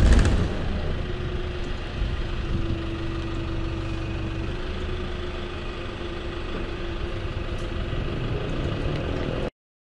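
Volvo B5LH hybrid bus's four-cylinder diesel engine settling into a steady idle just after being started, a low rumble with a steady hum over it. It is loudest at the very beginning, then runs evenly until it cuts off abruptly near the end.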